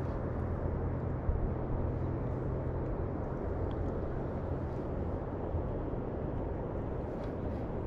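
Steady low rumble of outdoor background noise with a faint hum underneath. It is unchanging, with no distinct events.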